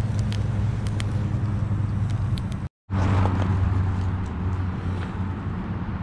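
Steady low drone of distant highway traffic, with the sharp crackle and pops of a small wood fire burning in a twig stove over the first half. The sound drops out for a moment about three seconds in, and the drone continues with fewer crackles after.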